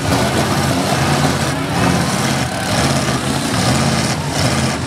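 Several demolition derby cars' engines running hard as the cars shove against one another, a loud, steady engine drone with no break.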